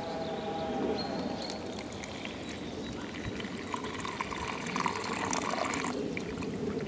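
Freshly boiled water being poured from a pot into a mug. The pouring is loudest from about four seconds in and stops abruptly about six seconds in.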